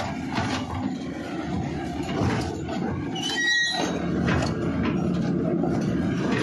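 Crawler excavator running, with irregular clanks and knocks about two or three a second and a brief high squeal about three seconds in.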